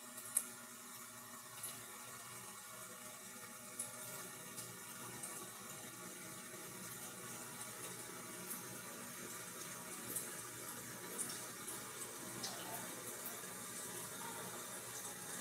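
Food sizzling in a frying pan on a gas stove, a steady hiss with scattered sharp spits of hot oil, growing slowly louder.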